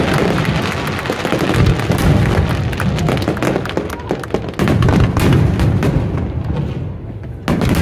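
Aerial fireworks going off in quick succession: rapid bangs and crackling bursts, with music playing along. There is a brief lull, then a loud burst near the end.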